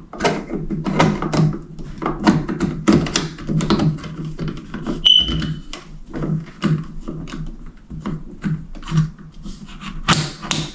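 Plastic clicks and knocks as a battery-powered smoke detector is handled and its battery compartment is closed. About five seconds in, the detector gives one short high-pitched beep, the chirp of the unit powering up or being tested with the new battery in.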